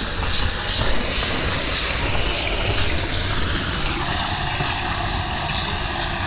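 Footsteps at a walking pace, about two crunching steps a second, over a low steady rumble. From about halfway a motor vehicle's engine hum comes in under the steps.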